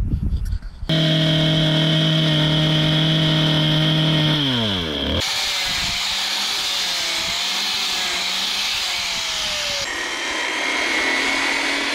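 Power tools working a timber beam in short cuts. A motor runs at a steady whine and spins down about four seconds in. An angle grinder with a sanding disc then sands the wood with a wavering pitch, and about ten seconds in a large circular saw runs.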